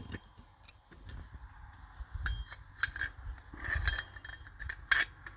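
Scattered light metal clinks and knocks from steel tools being handled: a slide hammer and its bolt-on angle-iron attachment, with a sharper click near the end.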